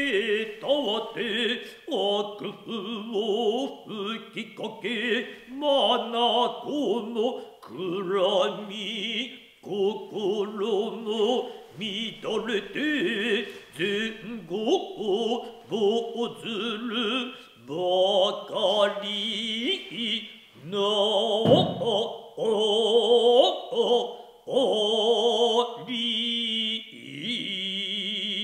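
Noh chorus (jiutai) chanting utai in unison, slow and sustained with wavering held notes. About three quarters of the way in, one low thump, the dancer's foot stamp on the wooden stage.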